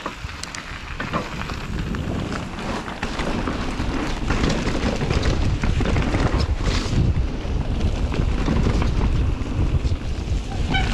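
Wind rushing over the microphone and tyres running on a dirt trail as a mountain bike is ridden fast downhill, with scattered clicks and rattles from the bike. It grows louder over the first few seconds as speed builds.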